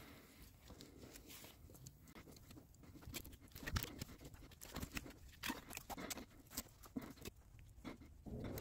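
Faint rustling and scattered small clicks of gloved hands winding cord around a bundle of sticks, with one sharper click or knock a little under four seconds in.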